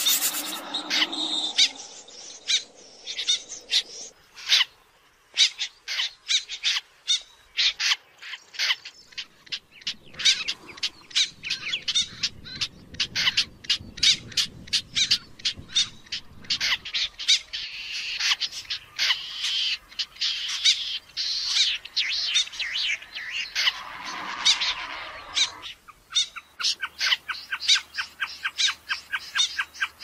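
Snipe calling: a long series of short, sharp calls, often several a second, in quick runs that grow faster and denser near the end.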